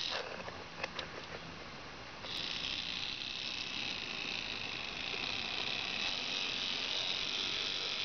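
Small motor and gearing of a Minitrix N scale DB Class E40 (BR 140) model electric locomotive running along the track: a brief burst and a few clicks at the start, then a steady high whine from about two seconds in until just before the end.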